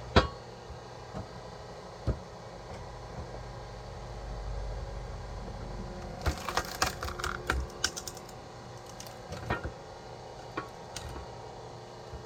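Wood knocking and cracking during firewood splitting: a sharp knock at the start, another about two seconds in, then a quick run of crisp cracks and clicks in the middle and a few more near the end, over a faint steady hum.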